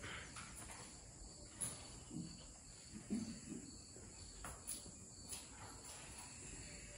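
Crickets chirring faintly and steadily, with a few faint short low sounds and clicks in between.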